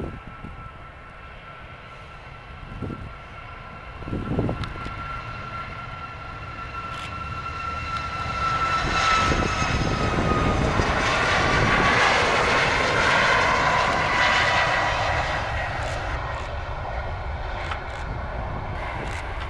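Boeing 737 MAX with CFM LEAP-1B engines taking off at takeoff thrust: a steady engine whine over a rumble that builds as the jet rolls down the runway and lifts off, loudest about midway. The whine drops in pitch as the jet passes, then the sound fades as it climbs away.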